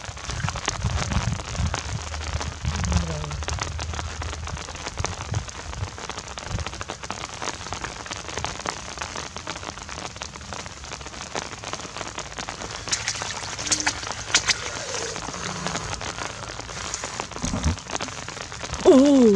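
Rain falling steadily on shallow flood water, a constant hiss of fine drops, with low splashes in the first few seconds as hands grope in the muddy water. Near the end a short, loud voice sound falls in pitch.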